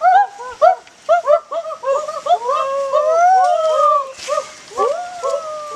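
A chorus of small animals crying: many short rising-and-falling notes overlapping, several a second, with a few longer drawn-out whining calls in the middle.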